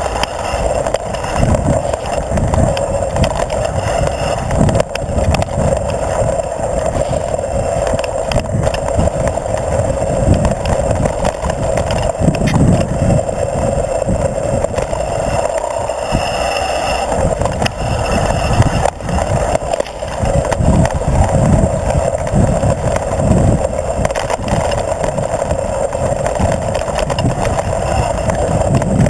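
Mountain bike rolling fast over a dirt singletrack, heard from a camera mounted on the bike: knobby tyres on hard-packed dirt, the bike rattling over bumps in many small knocks, and a gusting wind rumble on the microphone.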